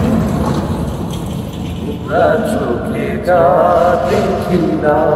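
A passing truck's low rumble fades out over the first second, then a man's voice sings long, wavering wordless notes of a folk melody from about two seconds in, breaking briefly between phrases.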